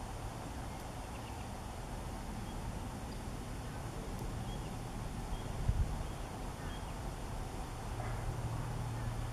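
Steady low outdoor rumble, with a low hum that grows stronger near the end, a few faint short high chirps, and one dull thump a little past halfway.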